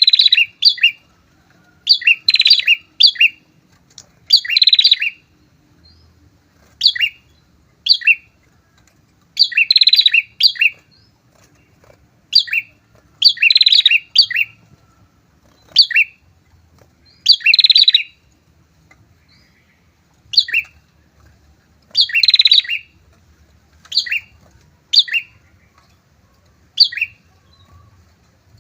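A pair of prinias (prenjak) singing hard: short bursts of high, rapid, buzzy trilled chirps repeated every second or two, the lively song used to provoke and lure rival prinias.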